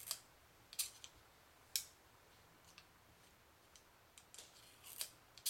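Faint, sharp metallic clicks, about six spaced irregularly, from a Ruger Single-Six .22 revolver's cylinder being turned by hand with the hammer at the loading notch, the cylinder free-spinning to line up a chamber for ejecting shells.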